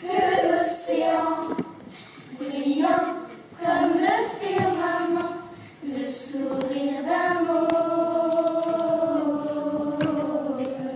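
Children's choir singing: a few short phrases with brief breaks, then a long held note through the last few seconds.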